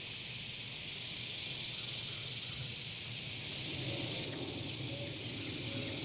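Summer insect chorus: a steady, high-pitched drone of cicadas, which thins a little about four seconds in.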